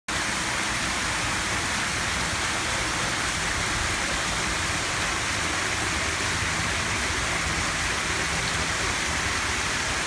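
Water falling in several thin streams from a sculpted rock fountain and splashing into the pool below: a steady splashing hiss.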